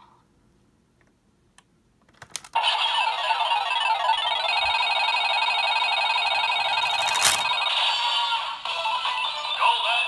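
Bandai DX Fever Slot Raise Buckle on a Desire Driver toy belt: a few plastic clicks as it is worked, then from about two and a half seconds in a loud electronic slot-machine jingle plays from the toy's speaker while the reels spin. There is another click about seven seconds in, and the tune changes near the end as the reels come to rest.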